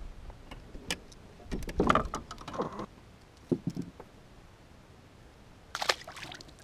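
Clicks and rattles of fishing gear and lure being handled as a hook is worked out of a bass's mouth, then a short splash near the end as the bass is dropped back into the water.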